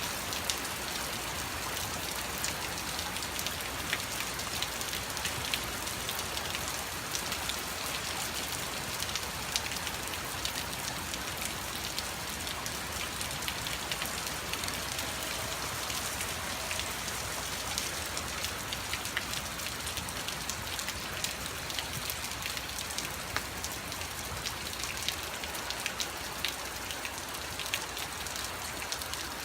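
Heavy rain pouring steadily, with a dense patter of sharp drop impacts on hard surfaces.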